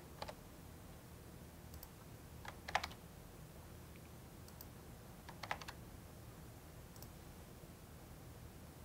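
A few quick keystrokes on a computer keyboard in three short bursts about two and a half seconds apart, over a faint low hum.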